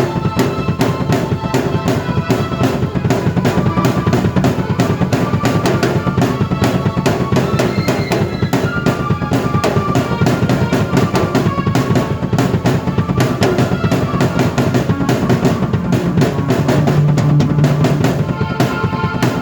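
A drum kit and a keyboard played together by one player: a fast, dense beat on bass drum and snare under held keyboard chords, with a strong low note sustained for a couple of seconds near the end.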